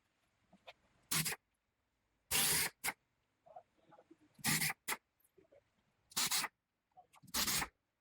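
Wood screws being backed out of a wooden shipping crate's base: about seven short noisy bursts, each under half a second, spaced about a second apart.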